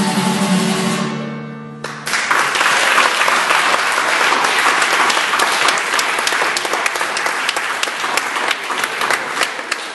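A children's choir holds the final note of a song, which ends about two seconds in. Loud audience applause then breaks out and carries on, thinning near the end.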